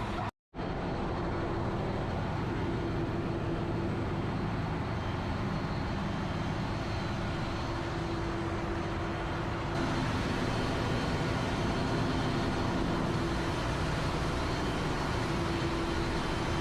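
Tanker ship's engine-room machinery running: a loud, steady, dense drone of the diesel engines with faint humming tones. It cuts out for an instant near the start and gets a little louder about ten seconds in.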